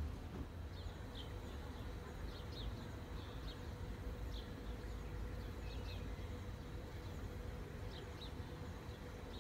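Quiet outdoor ambience: a low rumble and a faint steady hum, with scattered short high bird chirps throughout.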